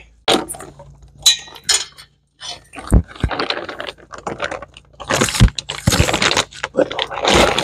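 Hand tools clinking and knocking on metal engine parts, in quick irregular clicks and rattles, while a cylinder is unbolted from a Lycoming O-540 aircraft engine.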